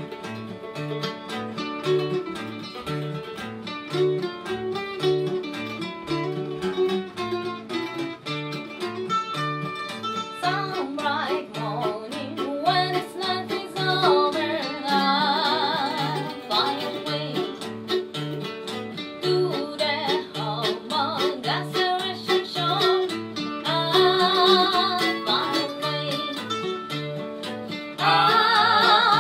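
Acoustic guitar strumming and mandolin picking a country gospel tune; a woman's singing voice comes in about ten seconds in, and the sound gets louder near the end.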